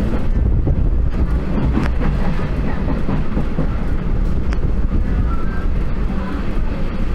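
Hyderabad MMTS suburban electric train running along the track, heard from inside the coach: a loud, steady rumble with a few sharp clicks from the wheels.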